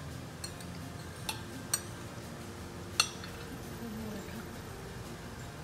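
A metal spoon clinking lightly against ceramic plates four times, the sharpest clink about three seconds in, over low room noise.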